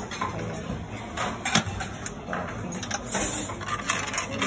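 Buffet dining-room ambience: a murmur of background chatter with a few sharp clinks of dishes and utensils.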